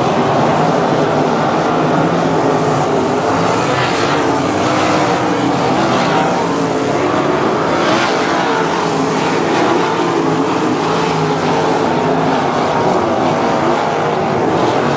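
A field of 305 winged sprint cars racing, their V8 engines running hard in a loud, steady din. Individual cars swell louder several times as they pass.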